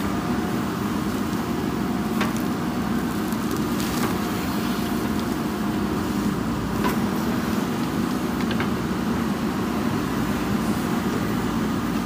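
JCB 3DX backhoe loader's diesel engine running steadily under load while the backhoe arm digs and lifts soil, with a few short, faint knocks spread through.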